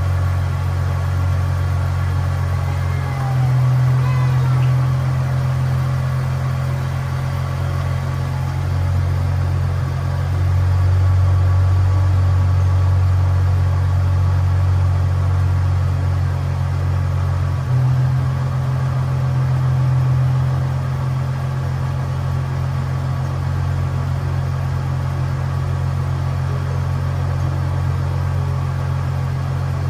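Holden VY Commodore engine idling steadily after being refitted, its note shifting slightly a few times.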